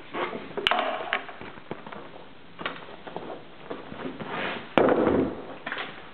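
Sneakers being pulled off and dropped on a wooden floor, with scuffing, rustling and scattered knocks; the loudest is a thud about five seconds in as a sneaker lands, then a foot slides into a plastic slide sandal.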